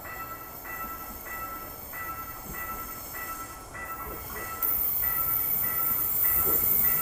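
Level-crossing warning bell ringing in an even repeating pattern, a bit more than one and a half rings a second, as an electric commuter train approaches. About halfway through a loud high hiss comes in, and the train's rumble builds near the end as it nears the crossing.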